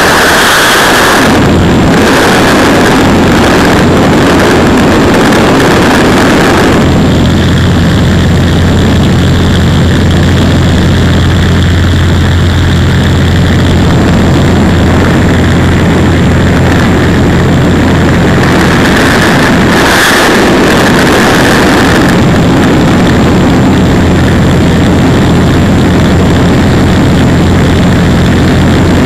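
Small propeller airplane's engine droning steadily in the cabin: a loud, even low hum with a wash of rushing air over it. The low tone steadies about a second and a half in, and the hiss swells briefly about twenty seconds in.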